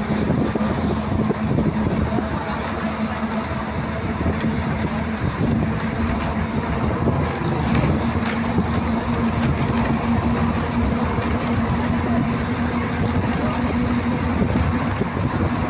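Steady road noise and a constant engine hum, heard from inside a moving vehicle travelling along a highway. A bus passing close alongside adds to the noise about eight seconds in.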